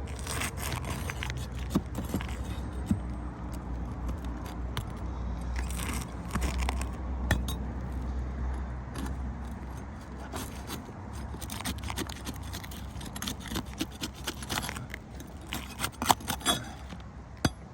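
Irregular clicks, clinks and scrapes as ridge cap shingles are pried loose and their nails pulled out, over a steady low rumble.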